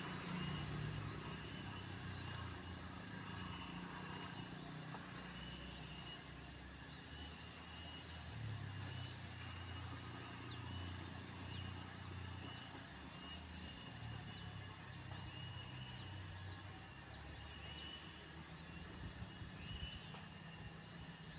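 Faint outdoor ambience: a low hum that shifts in pitch, with a thin steady high tone and scattered faint high chirps.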